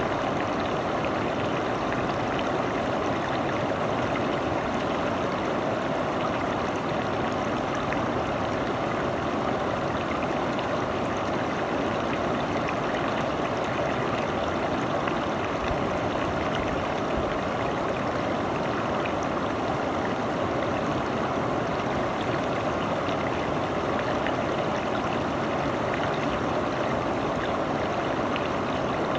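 A forest river flowing with a steady, even rush of water.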